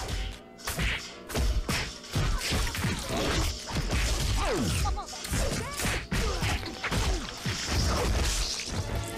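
Foley fight-scene sound effects made with vegetables: a rapid series of punches, smacks and whooshes, with a hand striking into a watermelon for the blows.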